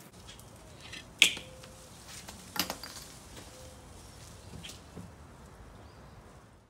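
Quiet outdoor background broken by a few sharp clacks of hard objects knocking together: the loudest about a second in, another about two and a half seconds in, and smaller ones near the end.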